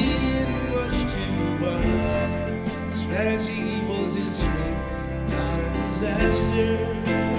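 A live band playing a full-band passage in a concert recording.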